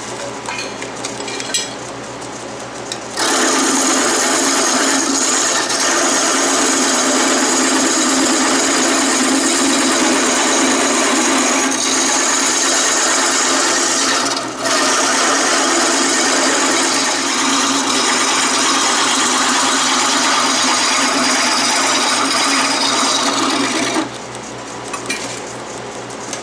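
Wood lathe running with a gouge cutting into a spinning wooden handle blank: a loud, steady cutting hiss starts about three seconds in, breaks off for a moment midway and stops near the end, leaving the lathe's quieter running hum.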